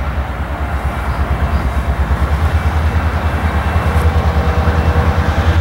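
A diesel locomotive, the EMD engine of a CSX GP38-2 working a mother/slug set, running under load as the set starts to move. It makes a low, rapidly pulsing rumble that grows steadily louder.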